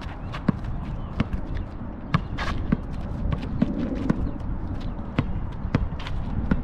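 A basketball being dribbled on an asphalt court: sharp bounces, unevenly spaced about half a second to a second apart, over a steady low rumble.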